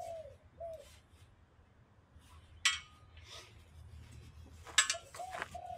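Small metal parts clinking: one sharp ringing clink about three seconds in and a short clatter of clinks near five seconds. A dove coos softly in short repeated notes at the start and again near the end.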